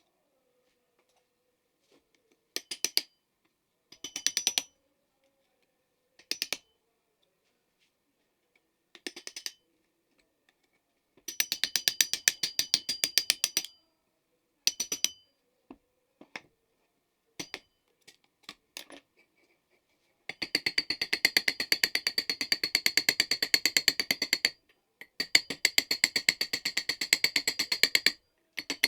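Rapid mechanical clicking in bursts of a second or less early on, then longer runs of several seconds from about a third of the way in, with short pauses between runs.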